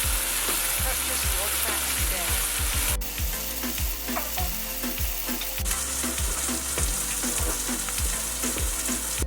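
Curry paste of tomato paste, turmeric, garam masala and curry powder sizzling in hot oil in a pan, with a spoon stirring and scraping it in a run of short knocks: the masala being fried before the chicken goes in.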